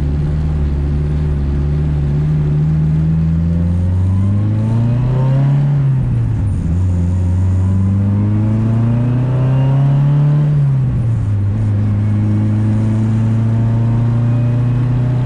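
Car engine accelerating hard, its pitch climbing steadily and then dropping at an upshift about six seconds in, climbing again to a second upshift about ten and a half seconds in, then running steady.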